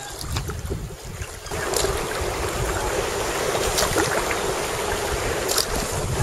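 Sea water splashing and washing around a sea kayak, with wind rumbling on the microphone. The water noise rises suddenly about a second and a half in and then holds steady, with a few sharper splashes about two seconds apart.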